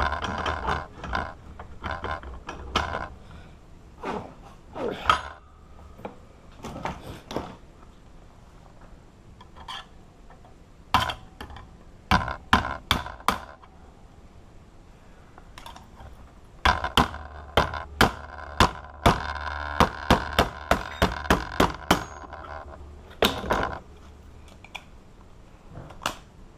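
Sharp metal knocks and clinks as the steel and brass pieces of a cut-open padlock are tapped and worked apart. The knocks come in irregular clusters, with a quicker run of about three to four taps a second in the second half.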